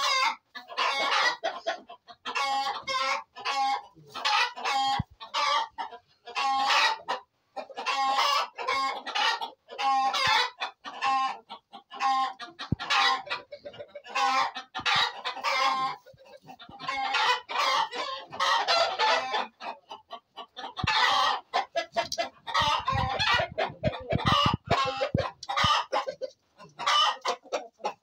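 Chickens calling continuously, hens clucking with rooster crows among them, in a dense run of repeated calls.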